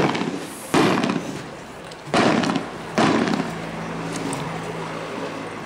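Festival firework rockets bursting overhead: four loud bangs over about three seconds, each trailing off in a brief echo.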